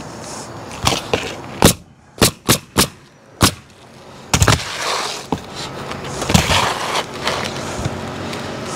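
Pneumatic coil roofing nailer firing nails through asphalt shingles: a quick run of about seven sharp shots in the first four and a half seconds, followed by softer scraping and a few light clicks.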